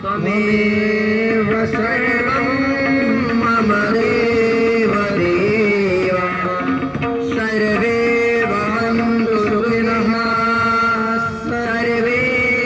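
Devotional Indian music: a gliding, ornamented sung melody over a steady drone.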